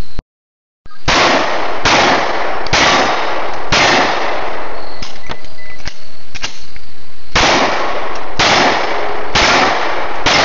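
Semi-automatic pistol firing about eight shots in two strings of four, roughly a second apart, with a pause of a few seconds and a few faint ticks between the strings.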